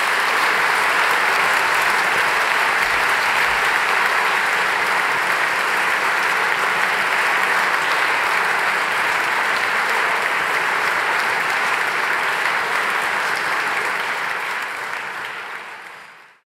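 Audience applauding steadily: a dense, even clapping from a large seated crowd that fades out near the end.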